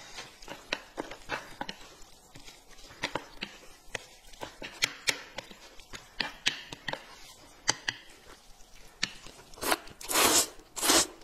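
Eating at a table: scattered small clicks of chopsticks against plates and mouth noises, then a few loud slurps of corn noodles being sucked up near the end.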